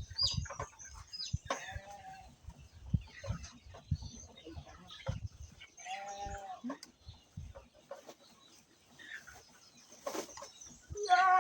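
Farm animals calling: short drawn-out calls about two seconds and six seconds in, and a louder one near the end, over scattered knocks and rustling.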